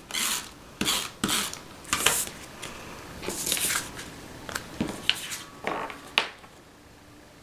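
Cardstock being handled and slid over a cutting mat: a series of paper rustles, swishes and light taps that stops about six seconds in.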